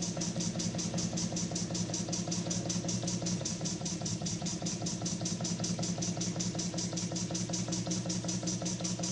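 Burnac Vulcan model steam engine running under steam, with a fast, even mechanical beat of several strokes a second that stays steady throughout.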